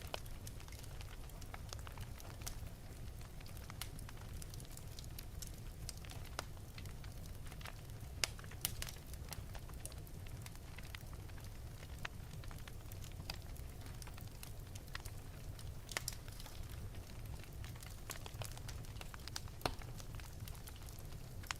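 Wood fire in an open fireplace crackling, with irregular sharp pops over a steady low rumble of the flames; a few louder pops stand out.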